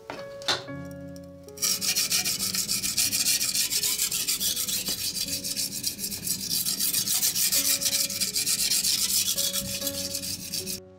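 A Damascus gyuto kitchen knife being sharpened on a wet whetstone, fingers pressing the edge down. The blade makes rapid, rhythmic up-and-down grinding strokes on the stone, starting about one and a half seconds in and stopping just before the end.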